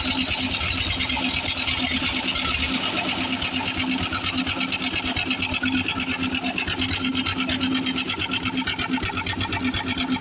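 An engine running steadily with a fast, even chatter. Its low rumble drops away about two and a half seconds in.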